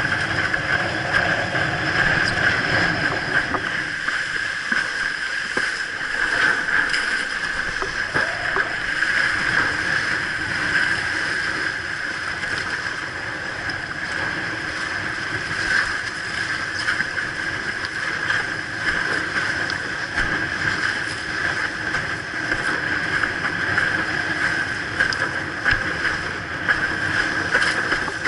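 Windsurf board planing over choppy sea: water rushing and chop slapping against the hull, with wind buffeting the camera and a steady high hiss.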